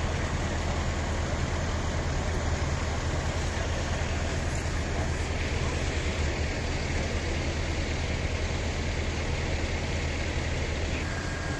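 Steady low engine rumble of heavy vehicles idling, the parked fire engines' diesel engines, over a constant wash of street noise. A thin steady high tone comes in near the end.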